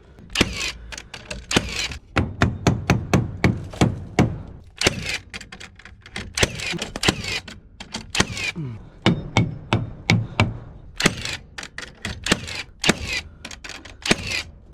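Hammer striking nails into wooden floorboards: many sharp, irregular knocks, several a second, with short pauses between runs of blows.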